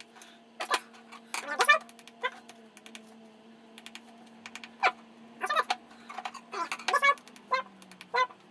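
Steel clutch plates and a metal feeler gauge clicking and clinking against a glass plate: a scattered series of short, sharp taps, some with a brief metallic ring, as the plates are checked for warping. A faint steady hum runs underneath.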